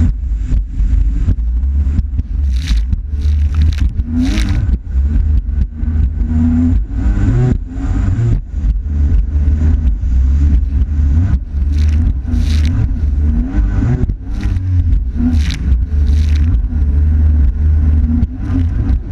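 Yamaha GP1300R jet ski running at speed, its engine droning steadily with small rises and falls in pitch. Water splashes and wind on the microphone add frequent short crackles over the engine.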